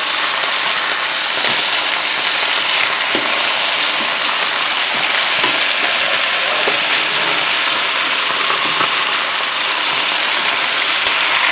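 Chicken breasts sizzling steadily in hot oil in the pot of a Cosori multi-cooker while they are browned, with a few light clicks of tongs moving the pieces.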